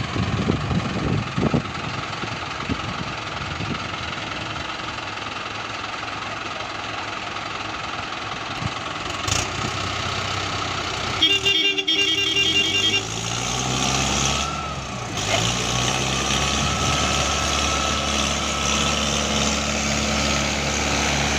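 Mahindra tractor diesel engines running, idling steadily at first. About eleven seconds in, a rapid electronic beeping sounds for a couple of seconds. Then an engine revs up and holds at a higher, louder speed as one tractor takes up the load of towing the other with its trailer.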